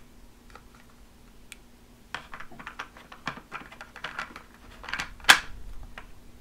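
Plastic pieces of a Play-Doh Twirlin' Top Pizza Shop playset clicking and tapping as they are handled and fitted together, with one sharper knock about five seconds in.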